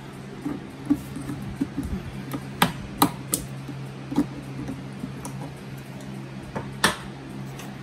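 Scattered sharp metallic clicks and knocks from pliers on the hose clamps and the handling of the washer's sheet-metal panel as the washer is taken apart, the sharpest a few around the middle and one near the end, over a steady low hum.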